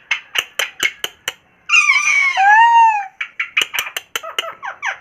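Indian ringneck parrot making a quick run of sharp clicks, then a loud drawn-out call of about a second with bending, falling notes, then another burst of fast clicks.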